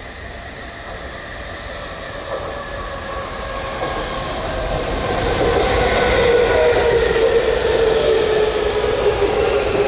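Tokyu 3000 series electric train approaching, its motors whining in several tones that slowly fall in pitch. It grows steadily louder and is loudest over the second half as the train draws near.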